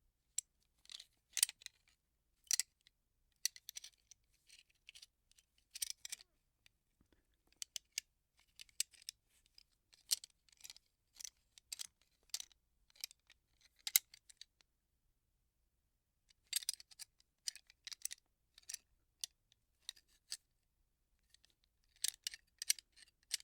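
Metal gun parts being handled: a string of irregular sharp clicks, clacks and light scrapes in clusters, with a pause of about two seconds a little past the middle.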